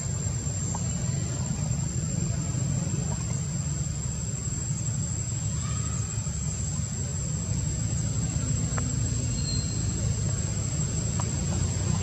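Steady low outdoor rumble with a constant high-pitched insect whine over it, and a few faint ticks.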